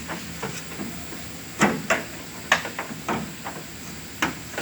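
Five sharp knocks at uneven intervals, the loudest three between about one and a half and two and a half seconds in, the last near the end.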